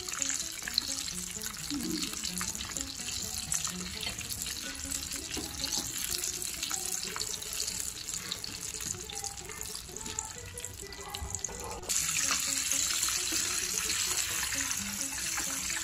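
Flour-coated chicken pieces deep-frying in hot oil in a pot: a steady crackling sizzle that jumps suddenly louder about twelve seconds in.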